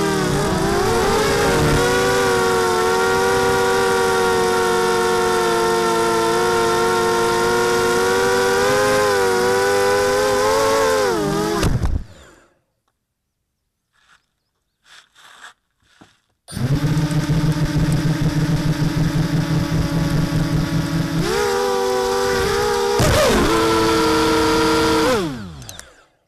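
HK 250 mini-H quadcopter's electric motors and propellers whining steadily, the pitch wavering with throttle. They cut off abruptly about twelve seconds in, leaving a few faint clicks. About four seconds later they start up again with a pulsing tone, step up in pitch, glide and wind down near the end.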